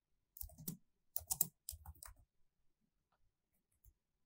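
Faint computer keyboard typing: a short run of keystrokes over about the first two seconds, with a single click near the end.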